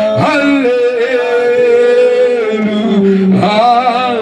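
A man singing into a microphone through a PA loudspeaker, holding long notes that slide slowly between pitches.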